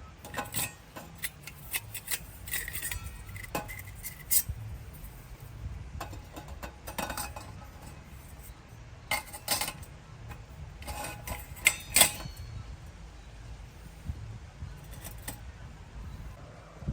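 Irregular clinks and knocks of cookware and utensils being handled, some leaving a brief ringing tone, over a low steady rumble.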